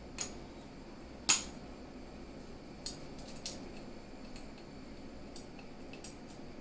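A measuring spoon and spice containers clinking and tapping: one sharp clink about a second in, with a few fainter taps and ticks after it.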